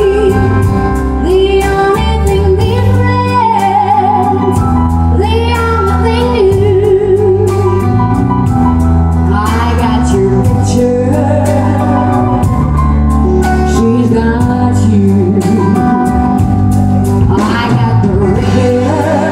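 A woman singing live into a microphone, holding long notes with vibrato, over a backing band with keyboard, bass and a steady drum beat.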